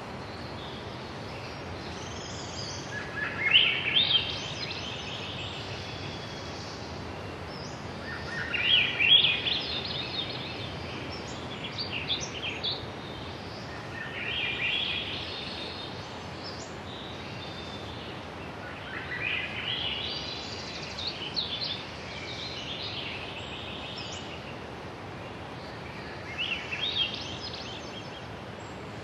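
A bird singing a short rising phrase about every five to six seconds, over a steady outdoor hiss.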